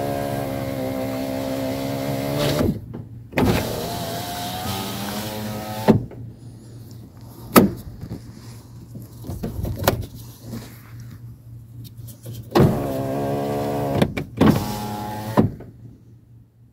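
2014 Toyota Sienna sliding-door power window motor running the newly replaced glass up and down, four separate runs of a steady whine, each stopping cleanly. Two sharp clicks come in the quieter stretch between the second and third runs.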